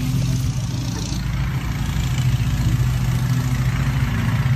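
An engine running at a steady idle, a constant low hum with no change in speed.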